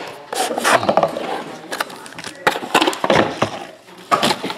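Foil-wrapped trading card packs crinkling and being handled, with a few light knocks as packs are set down on the table, in irregular bursts.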